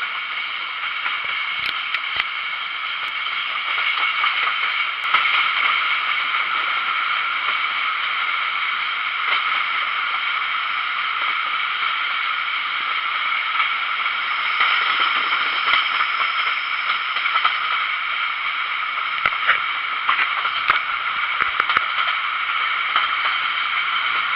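A passenger train running along the track, heard from beside the coach: a steady rushing, rolling noise with occasional short clicks.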